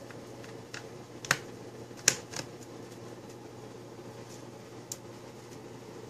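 Scattered small clicks and taps of a screwdriver and fingers on the laptop's plastic base and hard-drive screws, the sharpest about two seconds in, over a faint steady low hum.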